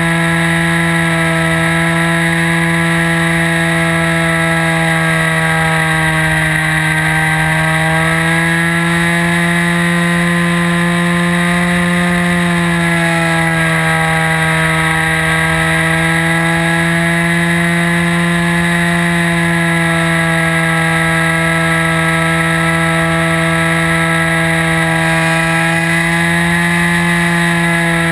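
OS 55 AX two-stroke glow engine and propeller of a radio-control model aeroplane running at high revs, heard close from a camera on board. It makes a steady buzzing whine whose pitch wavers gently up and down with throttle and manoeuvres.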